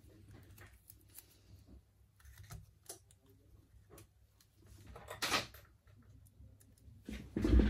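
Scattered light clicks and taps of a smartphone and small repair tools being handled on a workbench, with a louder scrape about five seconds in and a heavier knock near the end.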